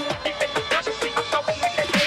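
Background electronic music with a steady beat; the deep bass drops out, leaving lighter percussion and a melody line.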